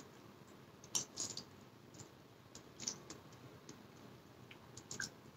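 Faint, scattered clicks of a metal fork and spoon against a ceramic bowl as noodles are eaten, with soft chewing sounds between them.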